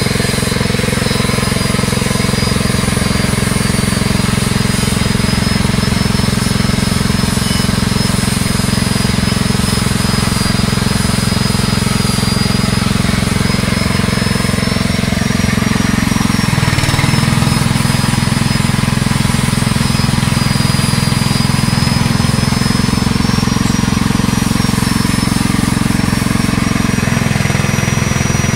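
Fish-feed pellet machine's motor running with a steady, loud drone and a thin high whine wavering above it. Its hum drops slightly in pitch about halfway through and again near the end.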